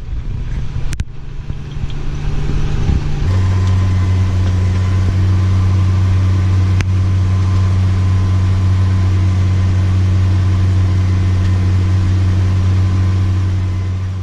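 A vehicle engine running steadily with a deep hum. It grows louder over the first few seconds, then shifts in pitch about three seconds in and holds steady.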